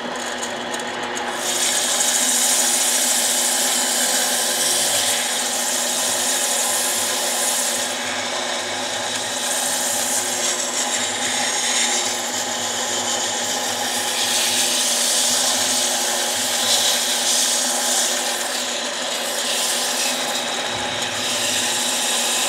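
Harbor Freight mini lathe running with a steady motor hum. From about a second and a half in, a loud rasping hiss of metal being cut or rubbed on the spinning workpiece swells and eases in waves.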